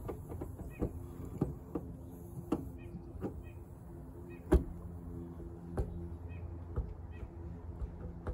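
Irregular metallic clicks and knocks of locking pliers and channel locks gripping and working a seized wiper-arm spline collar, the loudest knock about halfway through, over a steady low hum.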